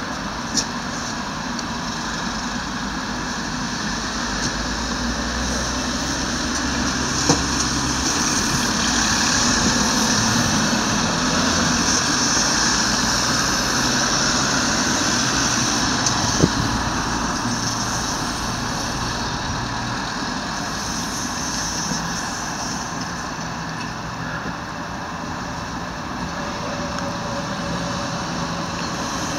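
Steady road traffic noise with a low engine rumble that rises and falls, broken by three brief clicks.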